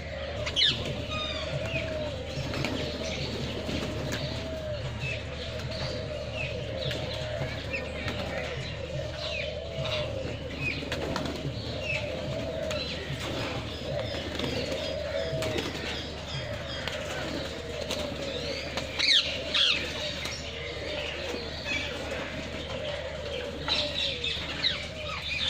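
Aviary birds calling together: a constant run of dove-like cooing, with chirps and sharp high calls from other birds over it. A few louder calls come in the middle and near the end.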